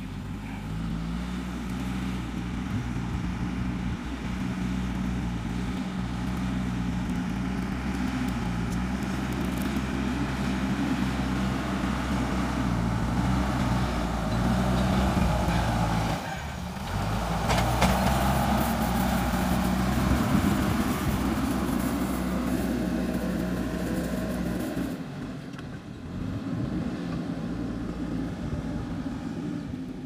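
JCB 3DX backhoe loader's diesel engine running steadily as the machine works the soil. About halfway through it gets louder and noisier for several seconds while the front loader bucket pushes a load of earth, then drops back abruptly.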